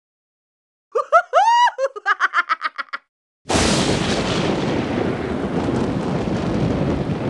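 A run of high, pitched laugh-like notes that rise and fall and repeat faster as they fade. About three and a half seconds in, a sudden loud explosion sound effect breaks into a long rumble that slowly dies away.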